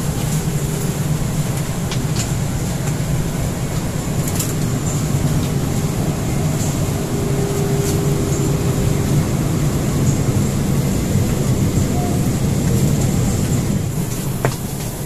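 Steady drone of an airliner's cabin, the hum of its air supply and running aircraft systems, with a few faint clicks and knocks scattered through it.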